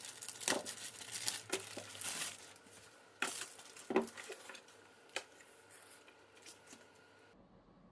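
Thin clear plastic bag crinkling and rustling as a laptop is pulled out of it, with loud crackles through the first few seconds that thin out after about five seconds.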